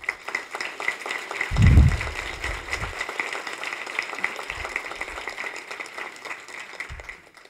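Audience applauding, a dense patter of clapping that fades away toward the end, with a low thump about a second and a half in.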